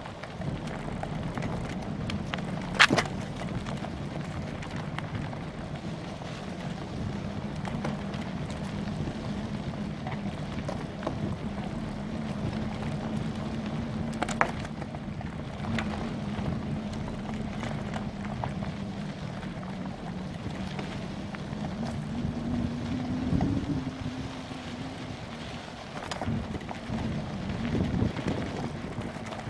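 Bicycle ride on a rough trail, heard from a camera on the bike: a steady rolling rumble with a low hum, wind on the microphone, and three sharp knocks from bumps, the loudest about three seconds in.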